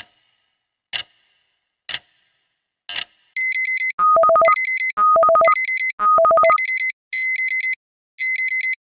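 Clock ticking once a second, four ticks, then about three and a half seconds in an electronic alarm goes off: loud, repeated bursts of rapid beeping at a steady pitch, about one burst a second, signalling that the countdown has ended.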